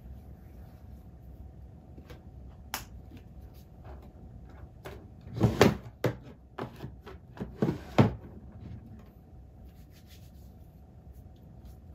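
A scattered run of sharp knocks and clicks from something being handled by hand: a single click about three seconds in, then a close cluster of knocks in the middle.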